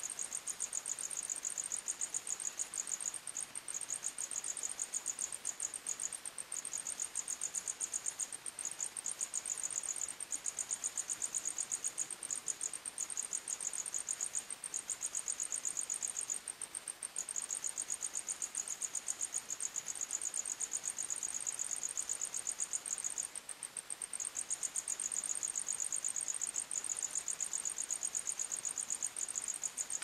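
Crickets chirping in a fast, continuous pulsed trill, high-pitched, at two slightly different pitches. The lower-pitched song breaks off briefly several times while the higher one carries on.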